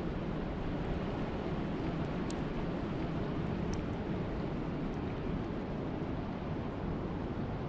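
Steady wind and rain: an even, low rushing noise with a few faint ticks.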